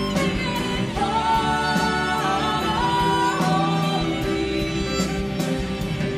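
Live worship band: women's voices singing long held notes that step in pitch, with violin, keyboard and electric guitar. A cymbal ticks steadily to keep time underneath.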